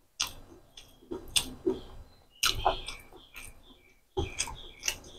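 Close-miked mouth sounds of a person chewing a mouthful of rice and chicken liver curry: wet lip smacks and chewing clicks in four short bursts with pauses between.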